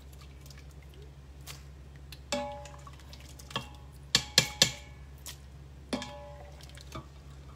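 Metal ladle clinking against stainless-steel pots while scooping cooked kidney beans into soup: scattered ringing clinks, with three sharp taps in quick succession about halfway through. A steady low hum underneath.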